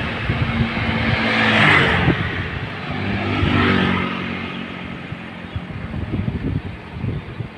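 Road traffic: engines running, with two vehicles passing close by, each swelling and then fading.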